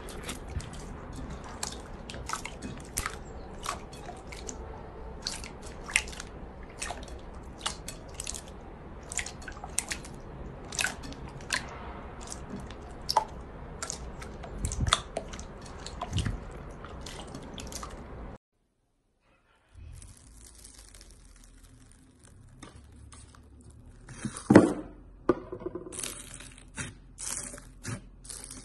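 Hands kneading clear, sticky slime in a glass bowl, with rapid wet clicks and pops as it pulls and presses. After a short break, a hand presses frothy pink slime in a heart-shaped plastic container, with sharp crackling, loudest about 24 seconds in.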